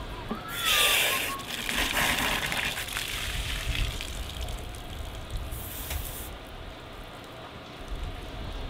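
Water spraying from a pistol-grip garden hose nozzle to rinse out a plucked, gutted hen, in a few bursts of hiss, the loudest about a second in. Gusty wind rumbles on the microphone underneath.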